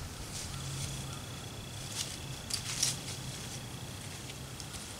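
Quiet outdoor background with a few short rustles and clicks around the middle, and a thin steady high whine that starts about half a second in and stops near the end.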